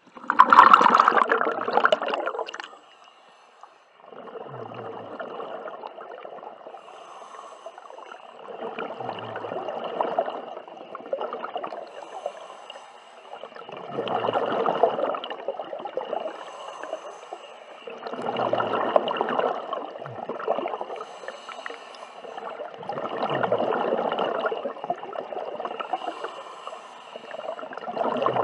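Scuba diver breathing through a regulator underwater: a rush of exhaled bubbles gurgles up every four to five seconds, with a faint hiss of the regulator on each inhale. A louder gush of bubbles comes in the first two seconds.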